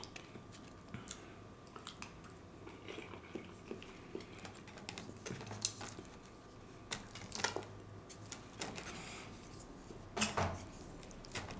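Plastic fork clicking and scraping against a styrofoam takeout container, with faint chewing between. Scattered short clicks, a few louder ones about seven and ten seconds in.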